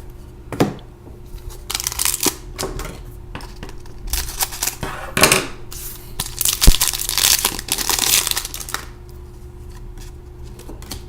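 Hockey trading cards being handled by hand: rustling and crinkling in a run of bursts with a couple of sharp clicks, settling down after about nine seconds.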